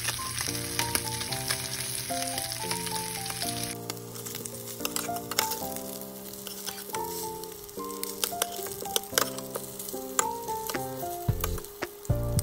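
Slices of beef heart sizzling as they brown in butter in a stainless steel frying pan, with a metal spatula clicking and scraping against the pan as it turns them. Gentle piano music plays over it; the sizzle is brightest for the first four seconds.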